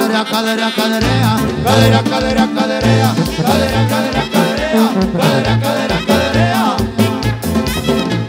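Live band playing an instrumental dance passage: sousaphone bass line, button accordion melody and drum kit, with a steady beat.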